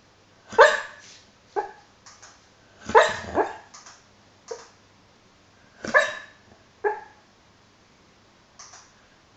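Labrador retriever barking in her sleep while dreaming: a string of short woofs and yips, the loudest about half a second, three seconds and six seconds in.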